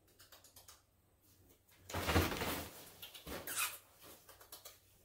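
Rustling and scuffling of a fabric pop-up play tunnel as a lionhead rabbit moves through and around it, in two noisy bursts about two and three and a half seconds in.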